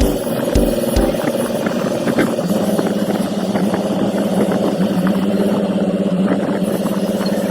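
Engine-driven machinery running steadily, with a dense rattle of small clicks over the hum. There are two low thumps in the first second, and the hum settles to a steadier pitch about two and a half seconds in.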